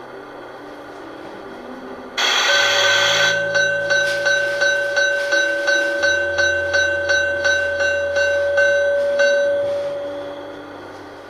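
G-scale model steam locomotive's sound effects: a sudden hiss of steam lasting about a second, then a bell ringing about three times a second for some seven seconds before fading out.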